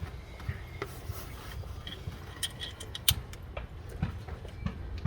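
Small clicks and light scraping of screws and hand tools being handled while cover screws are refitted on a car engine. The sharpest click comes about three seconds in.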